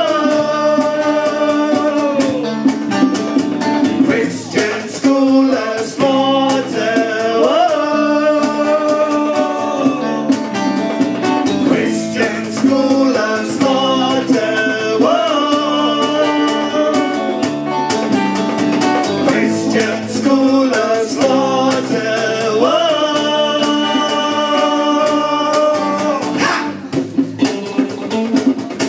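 Live rock band playing: male and female singers singing long held notes over electric guitars and a beat.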